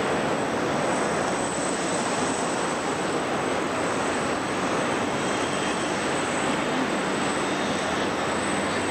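Boeing 747-400 jet engines at takeoff power, heard from across the airfield as a steady, even rushing noise that does not change.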